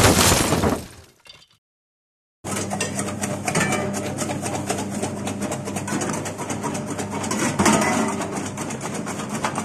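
Starts with a loud hit that dies away over about a second, then a short silence. Then a D-Veron electric rhizome slicer runs: a steady motor hum under a fast, dense crackle of the blades cutting rhizomes pushed down the feed tube.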